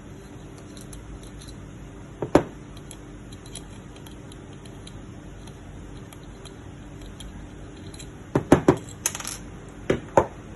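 Small metal parts clicking and knocking against a hard surface: two knocks about two seconds in, then a quick run of clicks, a short scrape and two more knocks near the end.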